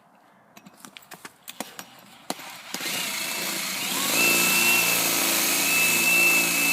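A few handling clicks, then a power drill spins up about three seconds in and bites into the steel deadbolt a second later. The drill runs steadily with a high, even squeal of the bit cutting through thick metal.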